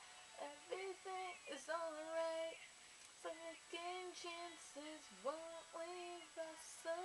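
A young woman singing on her own: several phrases of held notes with slides in pitch, the words not clear, and a short pause about three seconds in.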